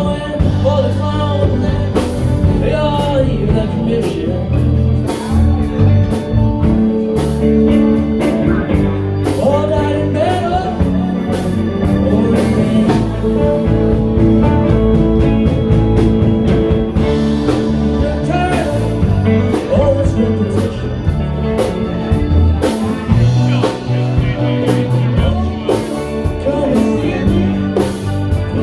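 Live band playing an uptempo blues-style number, with a drum kit keeping the beat and guitar and held notes over it.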